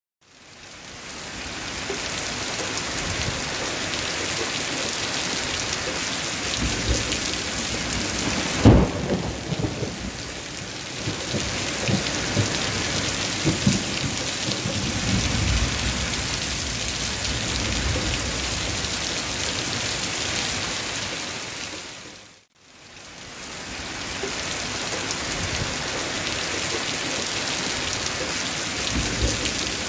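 Thunderstorm: steady rain hissing, with a sharp thunderclap about nine seconds in and low rolling thunder a few seconds later. The sound fades out and back in about two-thirds of the way through.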